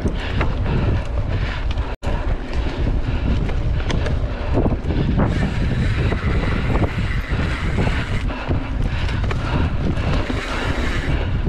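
Wind buffeting the microphone of a mountain bike riding fast along a dirt trail, with scattered rattles and knocks from the bike over rough ground. The sound cuts out for an instant about two seconds in.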